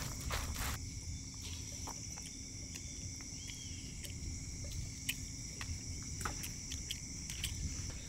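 Insects chirring steadily in a continuous high-pitched chorus, with scattered faint clicks.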